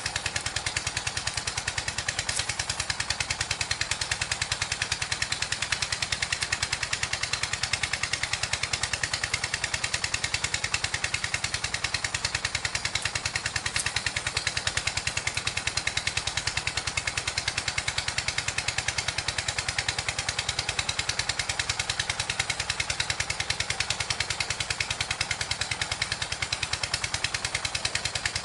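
A small engine running steadily, with fast even pulses that do not change.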